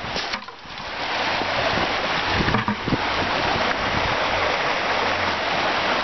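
A rocky woodland creek's water rushing steadily, growing louder over the first second, then holding at an even level.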